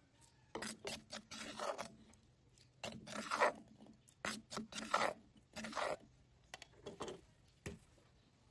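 A spoon scraping crushed peanuts out of a clay mortar in a series of short, irregular rasping strokes, the last one near the end.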